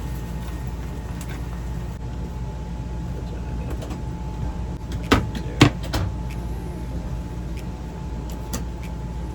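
A steady low hum with a thin steady tone above it, broken by a few sharp knocks between five and six seconds in; the loudest knock comes about five and a half seconds in.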